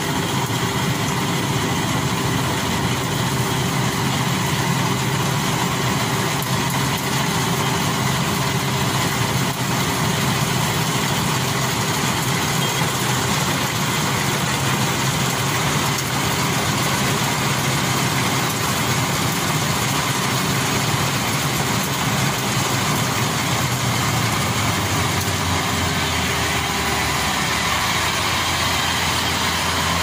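GreenStar rice combine harvester's engine running steadily under load while cutting and threshing rice. Its hum turns a little deeper near the end.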